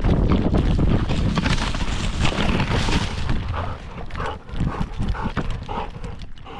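A dog running along a dirt trail, heard from a camera on its harness: quick thudding footfalls in a galloping rhythm with the camera being jolted. It eases off about three and a half seconds in into lighter, quieter steps.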